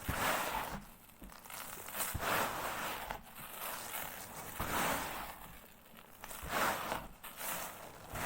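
Sand crumbling and being crushed onto cardboard: a gritty, crunching hiss that swells four times, about every two seconds.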